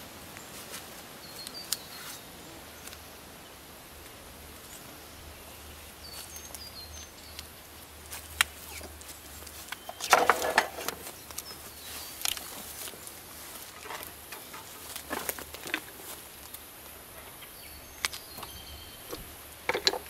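Outdoor background with small birds chirping now and then and scattered clicks and knocks from handling the hive box and tools. About halfway through there is a short, louder rasping burst of handling noise.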